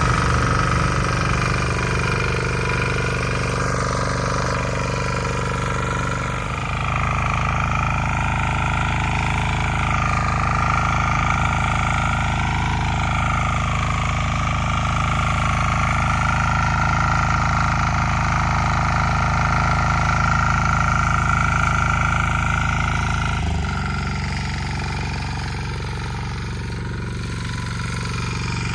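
Walk-behind rotary tiller engine running steadily in first gear while cutting a furrow, its note shifting about six seconds in and again about 23 seconds in.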